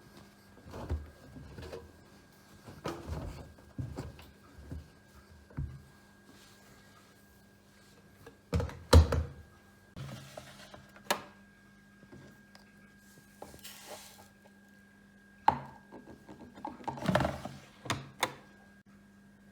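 Irregular thuds and knocks from a Bosch front-loading washing machine, the loudest about nine seconds in, over a steady low hum.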